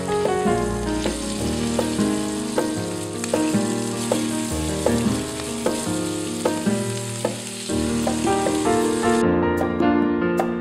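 Scallops sizzling as they sear in butter in a hot skillet, over background piano music. The sizzle stops suddenly about nine seconds in, leaving only the music.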